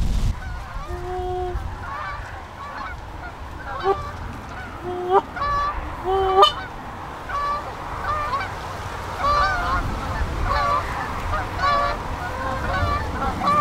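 A flock of Canada geese honking in flight, many short calls overlapping, coming thicker in the second half.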